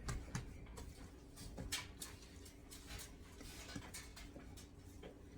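Faint, irregular light taps and knocks from bread dough being handled and worked on a floured countertop.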